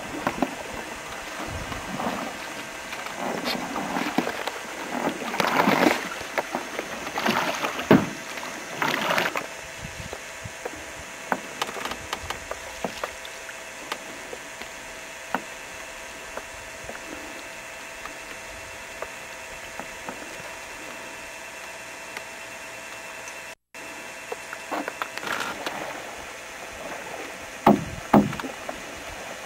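Canoe paddling: paddle strokes splashing in the water and wooden knocks of paddles against the canoe, coming irregularly, busiest in the first ten seconds and again near the end, over a steady faint hum.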